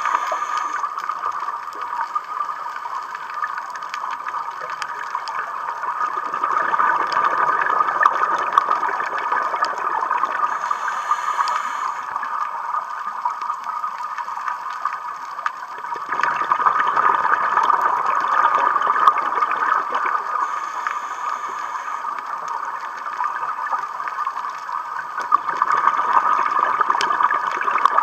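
Scuba diver's breathing heard underwater: exhaled bubbles from the regulator gurgling in long swells about every ten seconds, fading between breaths.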